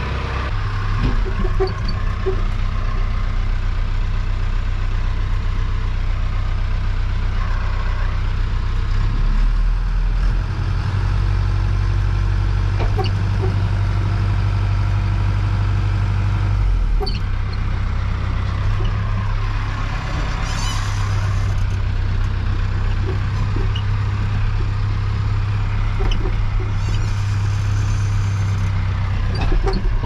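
Tractor engine running steadily, with scattered knocks and rattles; the engine note changes briefly a couple of times.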